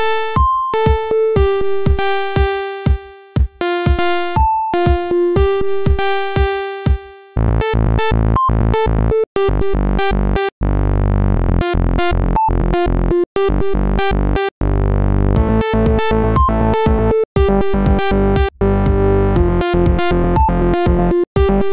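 Electronic oscilloscope music: synthesizer tones whose two stereo channels are made to draw pictures on an oscilloscope in X/Y mode. It starts as a sparse melody of short notes with gaps, and about seven seconds in a fuller, steady part with a low bass comes in, broken by brief silences.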